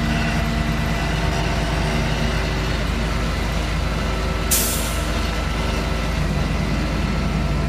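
Flatbed tow truck's engine idling steadily, with a short, sharp hiss about halfway through.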